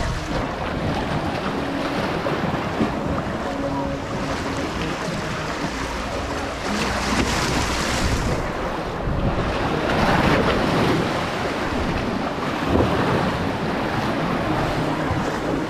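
Surf washing onto a sandy beach, swelling and easing as waves come in, with wind buffeting the microphone.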